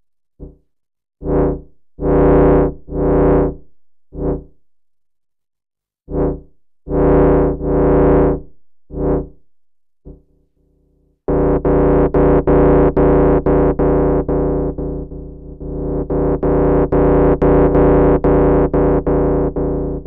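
A modular synthesizer voice plays a single pitch shaped by complex envelopes made by subtracting one control voltage from another. At first it sounds as separate notes of varied length and swell with gaps between them. About eleven seconds in it becomes a continuous tone that pulses rapidly and fades down and back up.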